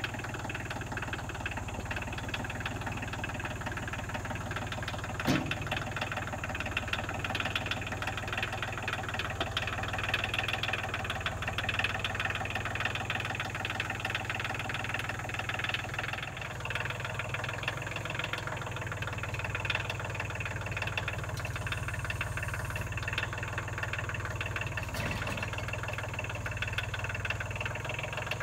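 Compact tractor's engine running steadily as its front-end loader lifts and sets down a heavy log. A sharp clank comes about five seconds in, and a lighter knock near the end.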